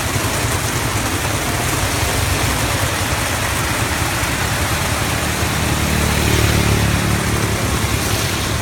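Tuk-tuk's engine running under way in the rain, with a steady hiss of rain and wet road over a low engine rumble. An engine note swells louder about six seconds in, then eases.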